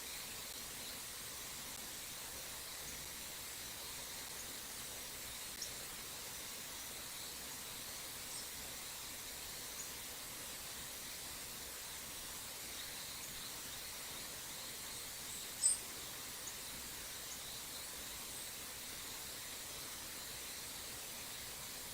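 Steady hiss of a small stream flowing past, with scattered brief high-pitched bird chirps; one chirp about two-thirds of the way in is louder than the rest.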